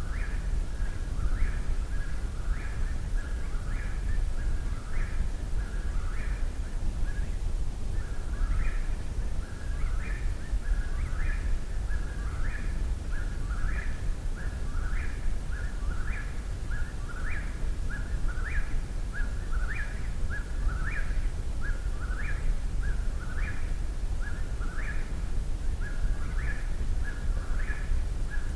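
Eastern whip-poor-will singing its repeated 'whip-poor-will' phrase about once a second without pause, each phrase ending on a sharp rising note, over a steady low rumble.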